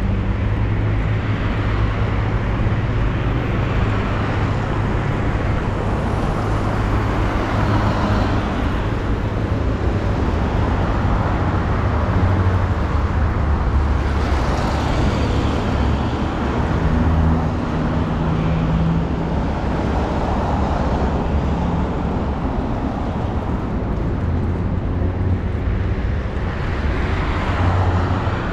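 Street traffic: several cars pass one after another, over a constant low rumble of road noise.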